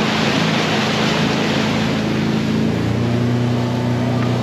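Motorboat engine running steadily under way, with the hiss of wind and water rushing past; about three seconds in the engine note shifts to a slightly different pitch.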